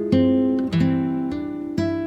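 Acoustic guitar music: plucked notes and chords, each ringing out and fading, a new one about every half second.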